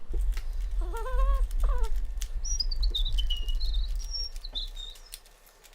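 Rubik's Cube being twisted rapidly to scramble it: quick plastic clicks over a heavy low rumble of hands handling near the microphone, which fades out about a second before the end. Short bird-like chirps and a falling whistle sound over it.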